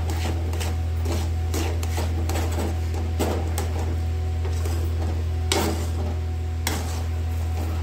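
Metal spatula scraping and knocking against a steel kadai as thick semolina halwa is stirred, in short irregular scrapes, with two louder scrapes about five and a half and just under seven seconds in. A steady low hum sits under it.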